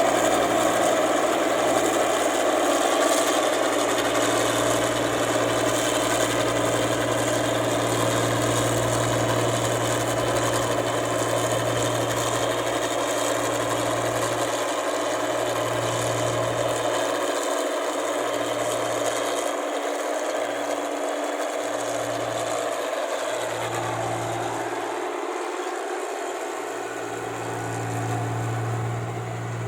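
Combine harvester's diesel engine running steadily at working speed, a continuous mechanical drone that eases slightly toward the end.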